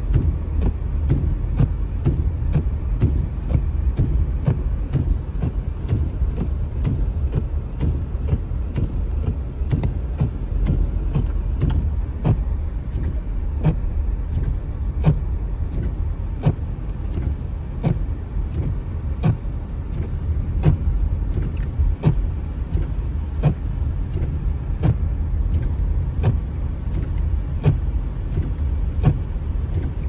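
Car windshield wipers sweeping a snowy windshield, with a sharp click or knock at each stroke about once a second. Under them is the steady low rumble of the car driving on a snowy road, heard from inside the cabin.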